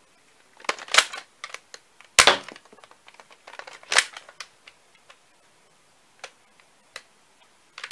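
X-Shot Reflex Revolver TK-6 toy foam-dart blaster being primed and fired: three loud, sharp plastic snaps, at about one, two and four seconds in, with lighter clicks between them and a few faint clicks later on.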